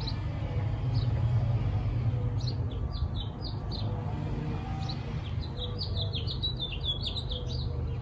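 Small birds chirping in quick runs of short, high notes, most busily in the second half, over a steady low rumble.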